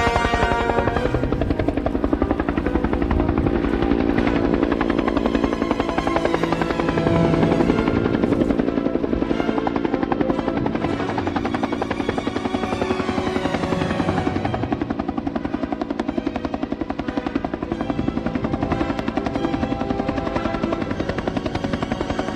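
Bell UH-1 Iroquois helicopter coming in close, its rotor giving a rapid, even beat.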